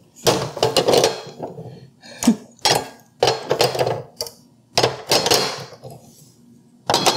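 Grey plastic food-processor attachments being pushed onto the posts of a plastic blade storage case. It gives a string of irregular plastic clacks and knocks, some eight to ten in all.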